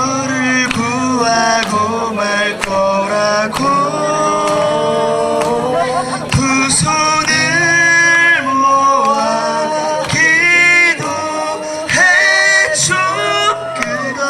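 Men singing a pop song into microphones, amplified through a PA over music with a steady beat.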